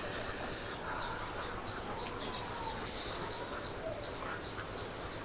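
Birds calling: a small bird repeats short, high, falling chirps about three times a second from about a second and a half in, with a single drawn-out lower call about two seconds in.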